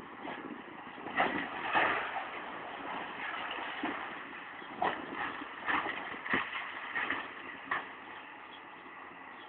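High-reach demolition excavator breaking up a concrete building: several sharp knocks and cracks of breaking concrete and falling debris at irregular intervals over the machine's steady engine noise.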